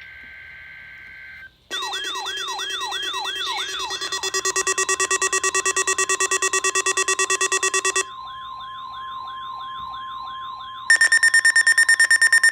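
A weather-radio alert data header buzzes briefly. Then several alert alarms sound at once: a siren warbling up and down about three times a second over rapid pulsing beeps and a steady warning tone. About eleven seconds in, a louder, faster beeping takes over.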